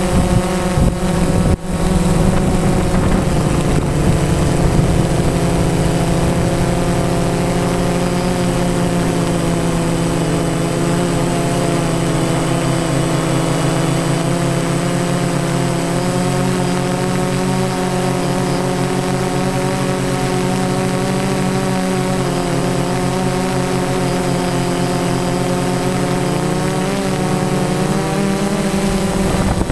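Phantom quadcopter's motors and propellers whining steadily, picked up by its onboard camera, with wind buffeting the microphone during the first couple of seconds.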